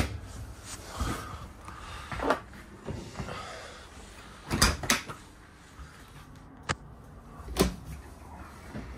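RV cabinet doors being opened and shut: a handful of separate knocks and clicks, the loudest a pair just before the halfway point and a sharp click soon after.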